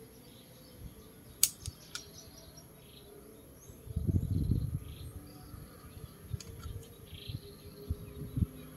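Handling noises on a workbench: two sharp clicks early, then a short burst of low knocks and rubbing about four seconds in, with a few lighter knocks after. Faint bird chirps sit in the background.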